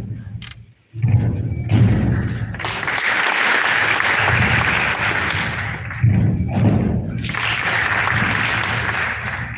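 Audience applauding and cheering, with heavy low thuds underneath, starting suddenly about a second in after a brief drop-out.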